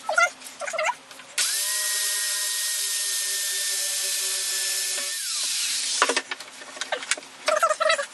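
Power drill running for about four seconds while drilling into wood, a steady whine that spins up at the start and winds down when it stops. Short squeaks come before it, and knocks and squeaks come after.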